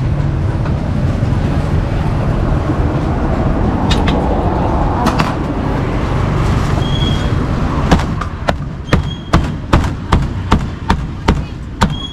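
Steady street traffic rumble, then from about two-thirds of the way through a run of about ten sharp cleaver chops, a little over two a second, as a whole grilled duck is chopped up on a thick round chopping board.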